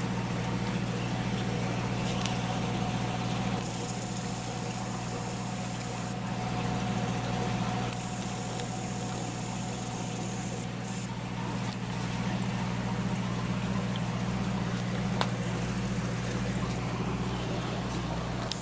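Steady low hum of aquarium pumps with water bubbling and trickling, and a higher hiss that comes in twice.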